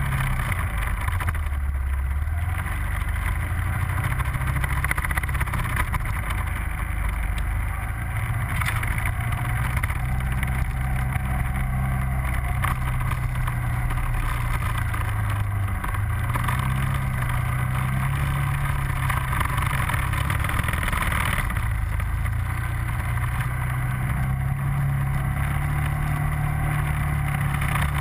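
ATV engine on a quad fitted with a snow track kit, running steadily under load through deep snow, its pitch rising and falling several times with the throttle.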